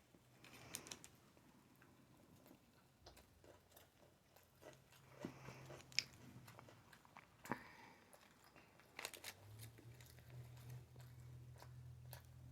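Faint chewing and mouth sounds of sushi being eaten, with a few sharp clicks scattered through.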